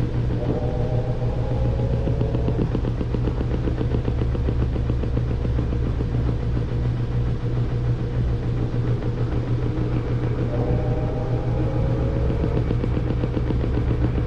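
Samsung front-load washing machine running its long spin cycle: a steady low motor hum with a fast rattle. A short whining tone glides up over a couple of seconds, once near the start and again about ten seconds in.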